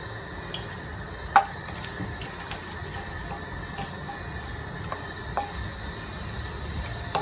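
Cumin seeds and whole spices starting to crackle in hot oil in a stainless-steel kadhai, with a few sharp ticks scattered through, the loudest about a second and a half in, while a wooden spatula stirs them against the pan. A steady low rumble runs underneath.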